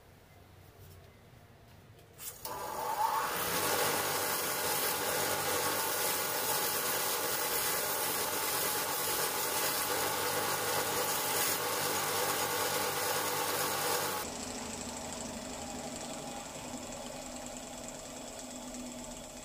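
A belt grinder running a Scotch-Brite belt starts about two seconds in, and a small metal bracket is pressed against the belt for a loud, even rasping scrub over the motor's hum. At about 14 s the part comes off and the belt keeps running more quietly.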